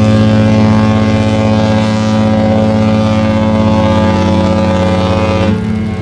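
Mein Schiff 1 cruise ship's horn (typhon) sounding one long, deep, steady blast that cuts off about five and a half seconds in, with rain hiss beneath.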